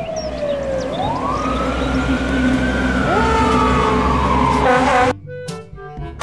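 Fire engine siren wailing: it sweeps down, rises slowly and sinks again, and a second siren tone joins about three seconds in, over a low rumble. The sirens cut off suddenly about five seconds in and music takes over.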